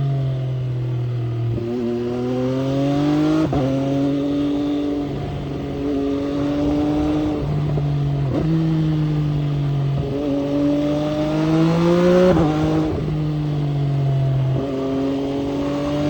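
MV Agusta Brutale 800's three-cylinder engine running under load, its note climbing and then dropping sharply over and over, about every two seconds, as through a run of gear changes.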